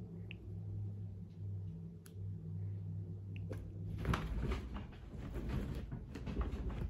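A miniature dachshund's paws scrabbling and rustling on a plush bed blanket as it pounces and scrambles, starting about four seconds in. Before that there is only a low steady hum and a single click about two seconds in.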